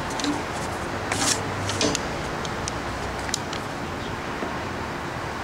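Clicks and knocks of a Ryobi cordless drill being handled and set against plywood, with a short louder scraping burst just after one second in and another near two seconds, over a steady background hum.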